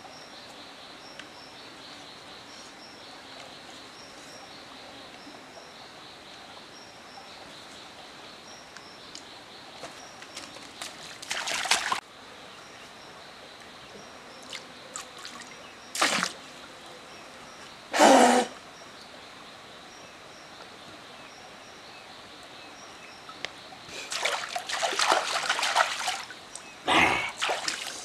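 Water splashing as a man drinks from a shallow stream, first with his mouth at the water, then scooping it up by hand. There are three short loud splashes through the middle and a longer stretch of splashing near the end, over a steady hiss and a faint insect chirp repeating about once a second.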